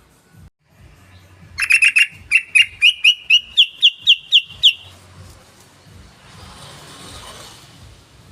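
Yellow-vented bulbul (trucukan) singing: a fast rattle of chirps that slows into a run of about a dozen sharp, rising notes over some three seconds, followed by a soft hiss.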